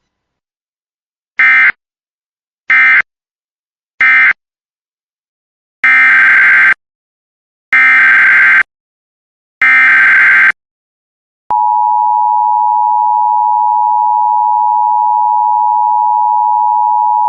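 Emergency Alert System SAME data bursts: three short buzzy bursts of digital data, the end-of-message code, then three longer bursts, the next alert's header. About eleven seconds in, the steady two-tone EAS attention signal starts and holds.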